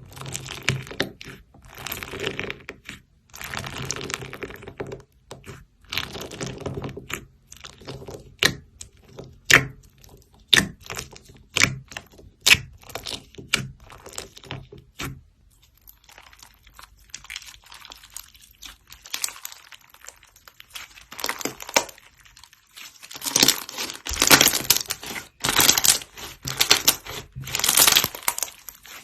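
Slime being squished and played with: sticky, crackly swells about every two seconds, then a run of sharp pops and clicks from about eight to fifteen seconds in, then louder, denser crackling squishes.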